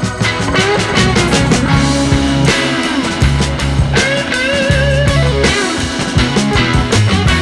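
Background music: a rock track with guitar, drums and bass, its melody line bending in pitch.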